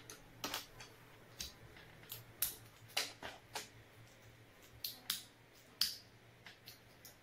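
Small white plastic lotion-pump parts being handled and pressed together by hand, giving a dozen or more sharp clicks and snaps at irregular intervals.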